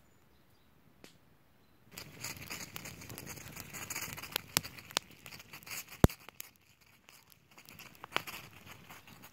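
Aluminium foil crinkling and tearing as it is handled and opened, starting about two seconds in, with a run of sharp crackles and one loud click about six seconds in.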